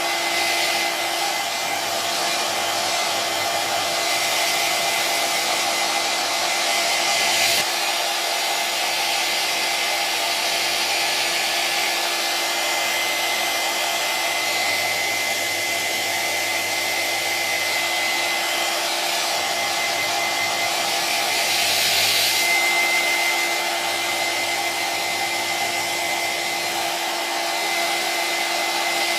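Electric hair dryer running steadily: a continuous rush of blown air over a steady motor hum and a thin high whine, briefly louder and brighter twice, about a third of the way in and again about three quarters of the way in.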